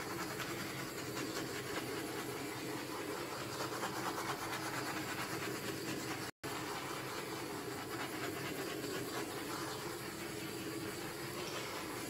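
Handheld torch flame burning with a steady hiss as it is passed over wet acrylic pour paint to pop surface bubbles. The sound cuts out for an instant about halfway.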